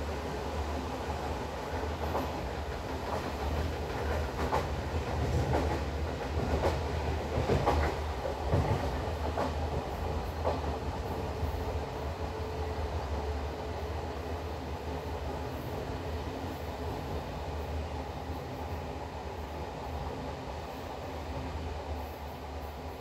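Passenger train running at speed, heard from aboard a coach: a steady low rumble, with wheels clicking over rail joints through the first half, then smoother running.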